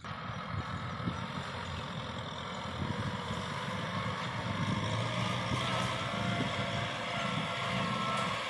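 Tractor's diesel engine running steadily under load as it pulls a rotary tiller through dry soil, slowly getting louder as it comes nearer.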